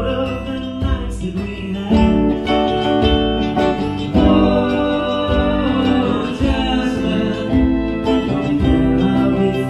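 Live band playing: electric guitars, keyboard and hand drums, with sustained, bending guitar-like lines over a steady rhythm.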